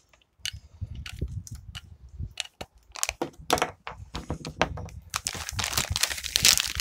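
Plastic flameless ration heater bag of an MRE crinkling and rustling as it is handled, with irregular crackles that grow dense near the end.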